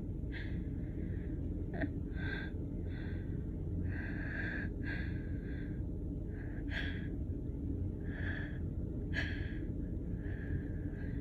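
A woman's repeated short, hitching gasps and sniffs as a sneeze builds but does not come, over a steady low background rumble.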